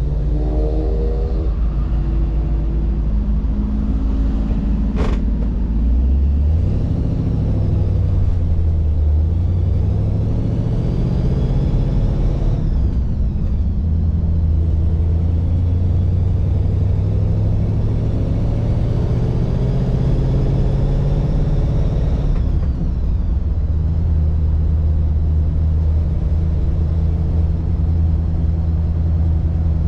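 1948 Mercury station wagon's 239 cubic inch flathead V8 pulling away through its three-speed gearbox. The engine note climbs, drops at an upshift about twelve seconds in, climbs again with a faint rising whine, drops at a second upshift, then settles into a steady cruise. There is a brief sharp click about five seconds in.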